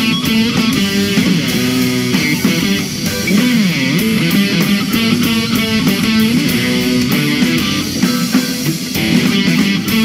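Live band playing an upbeat rock instrumental, led by an electric guitar whose notes bend and slide, over keyboard and drums.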